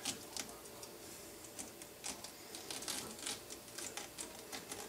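Faint, irregular clicks and scrapes of an apple corer being drawn through the flesh of a peeled pineapple to cut out its eyes, several small ticks a second.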